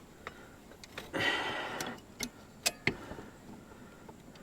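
A few sharp separate clicks and taps of metal hardware and hand tools, with a short scraping rustle about a second in, as screws are fitted around the mower's drive shaft.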